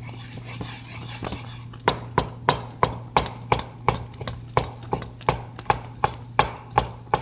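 A utensil stirring fast in a pot of okra soup, knocking against the pot in a steady rhythm of about three clinks a second, starting about two seconds in. The okra has had baking soda added and is being mixed quickly so that it turns slimy and does not froth over.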